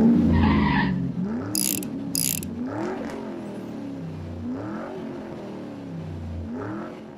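Logo-intro sound effect of a car engine revving several times, each rev rising and falling in pitch, with two short mechanical ratcheting bursts about one and a half and two seconds in; it fades out near the end.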